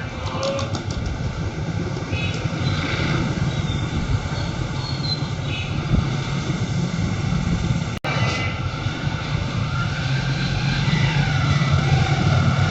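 Steady mechanical running noise from workshop machinery: a low hum with a faint, steady high whine. It drops out for an instant about eight seconds in.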